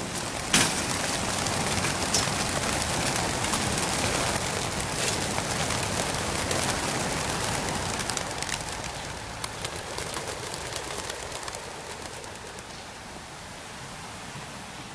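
A large flock of racing pigeons taking off together from a transport truck's opened crates: a dense rush of wingbeats with a sharp knock about half a second in. The rush thins and fades over the last few seconds.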